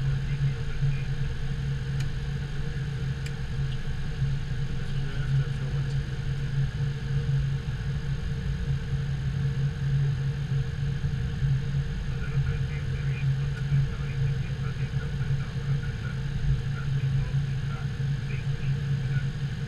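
Steady low hum inside a Boeing 777-200 cockpit while the airliner taxis after landing, its engines at idle.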